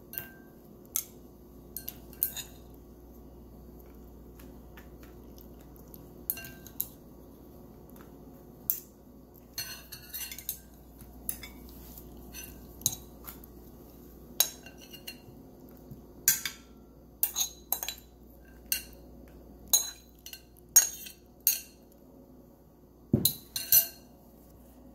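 Metal spoon clinking and scraping against a glass mixing bowl and plate as salad is served out, in short, sharp, irregular clinks that come more often in the second half.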